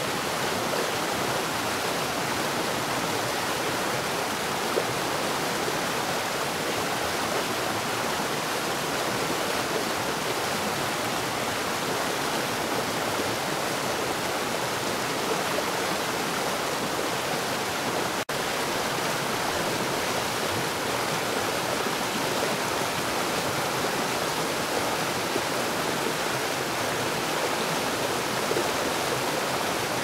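Flowing stream water rushing in a steady, even hiss, with a split-second dropout about two-thirds of the way through.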